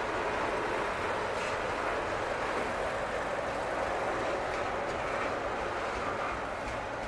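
Double-stack intermodal container well cars rolling past: a steady rolling noise of steel wheels on the rails, with a few faint clicks.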